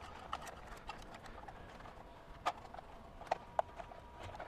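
Scattered light clicks and knocks of a blade and plastic wheel cover being handled during a blade change on a Makita GBP01 cordless band saw, the sharpest knocks a little past halfway.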